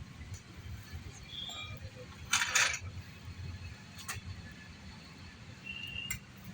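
Metal parts clinking as they are handled, with one louder short clatter a little over two seconds in and a single sharp click about four seconds in, over a low steady hum.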